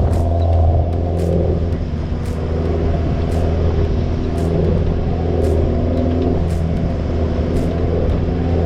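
Four-wheel-drive vehicle driving: a steady, loud engine and road drone, with faint high ticks about once a second.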